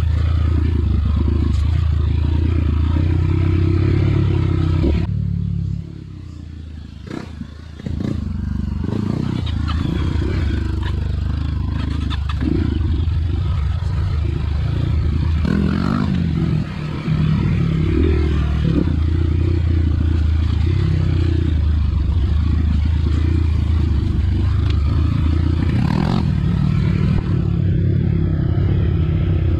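Dirt bike engine running up close, with clatter and scraping from riding over rough ground. About five seconds in the engine sound falls away for about three seconds, then picks back up.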